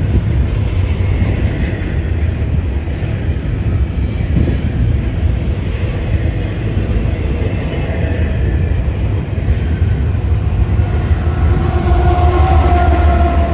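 Double-stack container train rolling past with a steady rumble and clatter of steel wheels on rail. Near the end, the Canadian Pacific diesel locomotive at the rear of the train passes, and its engine adds a steady droning hum over the rumble.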